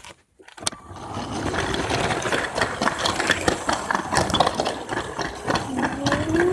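Motorized Lego train starting off and running along plastic track: a dense, steady clatter of many small ticks with motor noise. It starts with a click about half a second in and builds over the next second.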